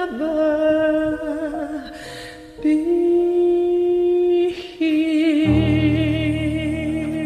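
A woman humming wordless held notes at the close of a song, with two short breaths between phrases. The last note is long with vibrato, and a low sustained backing chord comes in under it about two thirds of the way through.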